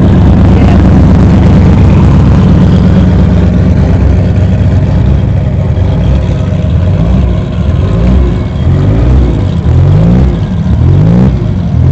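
Motor vehicle engine running loud with a deep, steady rumble. In the second half it is revved in a quick series of short rising revs.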